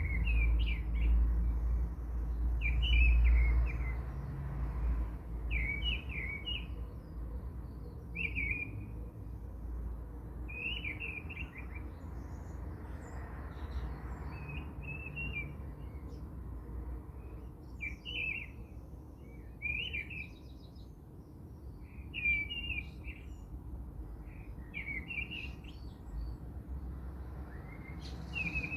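A bird chirping in short repeated phrases, one burst every two seconds or so, over a low rumble that is louder in the first few seconds.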